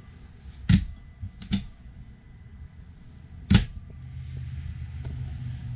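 Overhead cabinet doors being handled and shut: a few light knocks in the first second and a half, then one sharp knock about three and a half seconds in as a door closes.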